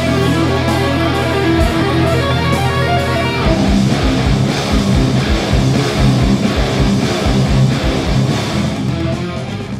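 Electric guitar in drop C tuning playing a low riff: held low notes for about three seconds, then a fast run of short, punchy low notes, trailing off slightly near the end.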